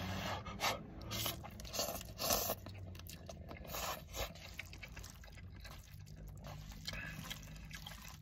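A person slurping hot instant ramen noodles off chopsticks, in several short noisy pulls over the first four seconds or so, then chewing more quietly.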